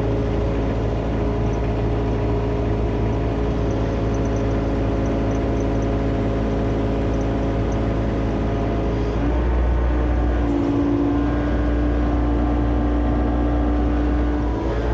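John Deere excavator's diesel engine and hydraulics running steadily under load while the machine is worked; the engine note and a steady hydraulic tone step up about nine seconds in as the load changes.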